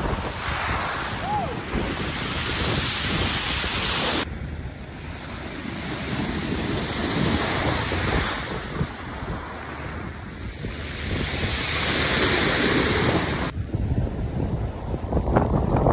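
Sea surf breaking and washing over a pebble beach, swelling and falling, with wind buffeting the microphone. The sound changes abruptly about four seconds in and again near the end.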